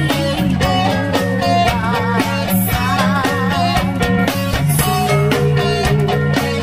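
Background music led by guitar, with wavering held notes over sustained low notes.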